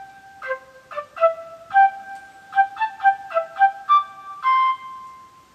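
Instrumental music: a single flute-like melody of short, separate notes, ending on a longer held note about a second before the end.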